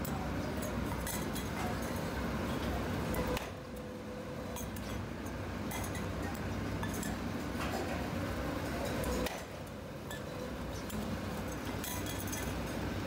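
Workshop machinery running with a steady low hum, and light metallic clinks as steel oil filter housings are handled at a press. The hum drops suddenly in level about three and a half seconds in and again near nine seconds.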